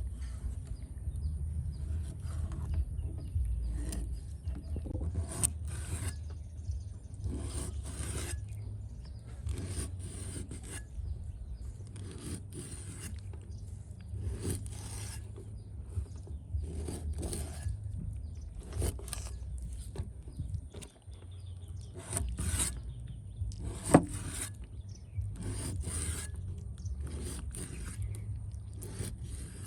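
Repeated scraping strokes, roughly one a second, over a low steady rumble, with one sharp knock about 24 seconds in.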